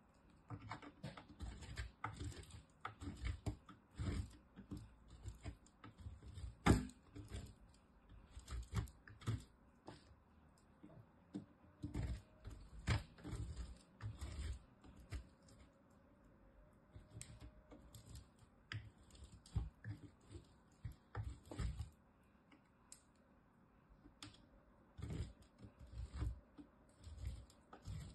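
A piece of bar soap rubbed and scraped against a metal box grater: irregular runs of short, crisp scraping strokes and clicks, with one sharper stroke about a quarter of the way through and a short pause near three-quarters through.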